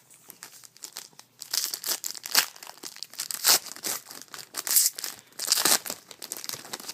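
A trading-card pack's plastic-foil wrapper being torn open and crinkled. The crackling starts about a second and a half in, goes on in quick sharp bursts, and dies down near the end.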